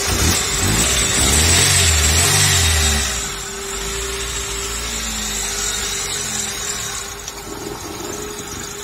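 Daewoo Nexia's four-cylinder petrol engine just after starting, revving up and down for about three seconds, then settling to a steady idle. It is running again after a no-start traced to a distributor cap whose centre carbon had worn away.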